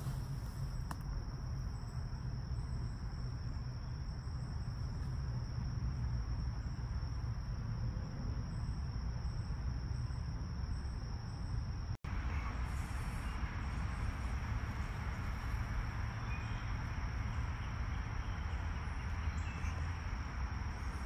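Woodland ambience: insects keep up a steady, high, unbroken drone over a low rumble of wind on the microphone. The sound breaks off for an instant about twelve seconds in, then carries on much the same.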